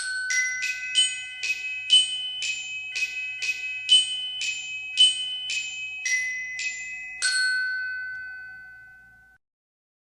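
A short closing tune on a glockenspiel-type mallet instrument: bright, bell-like struck notes at about two a second. It ends on one long note that rings out and fades away over about two seconds.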